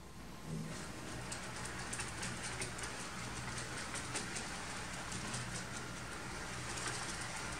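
HO-scale model train running along the track, a steady rolling hiss with many quick light clicks and a low motor hum underneath.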